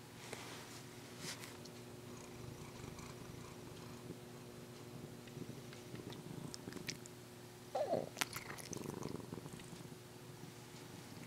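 Domestic cat purring close up, with a short louder sound and a few clicks about eight seconds in.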